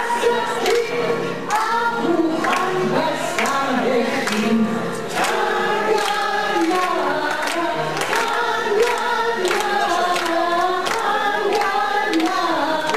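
A group of voices singing a song together, with sharp beats keeping time about twice a second.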